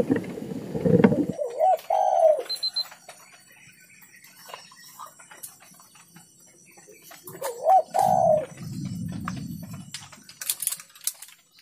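Spotted dove cooing in short wavering phrases, once about 2 s in and again about 7.5 s in. A low rumbling noise lies under the opening second and under the second phrase.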